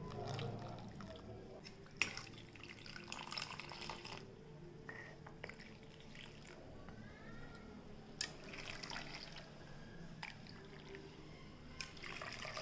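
Faint dripping and small pours of liquid, with a short rising filling sound near the middle. Sharp clicks are heard about two seconds in, again around eight seconds and near the end.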